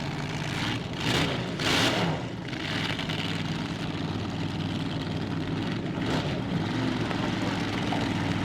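Supercharged dragster engines idling in a steady lumpy beat, blipped with short throttle punches about a second in, again just before two seconds, and once more around six seconds.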